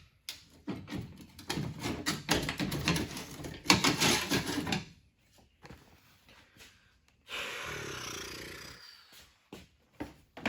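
Metal tools and parts clattering and knocking as someone rummages through them for about four seconds, then a sliding scrape lasting about a second and a half.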